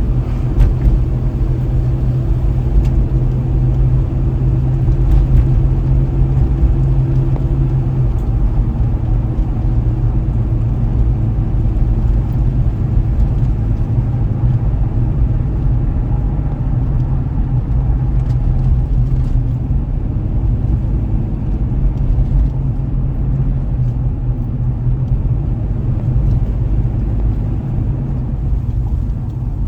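Car driving on a road: steady low rumble of engine and tyres, with a humming engine tone that fades about eight seconds in, and a few faint clicks.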